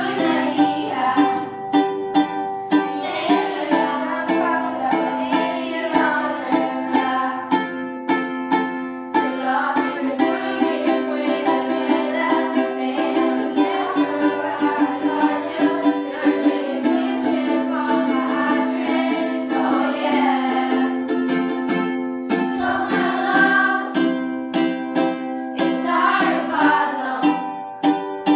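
Ukulele strummed in a steady rhythm, accompanying a group of girls singing a song in Irish.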